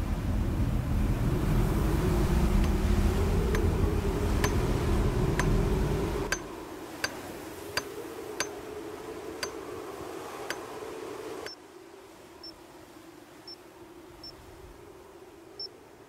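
A low steady rumble with sharp clicks about once a second over it; the rumble stops at about six seconds and the clicks run on alone, fading out after about ten seconds. Near the end, faint short beeps about once a second from a digital camera's buttons as its photos are flicked through.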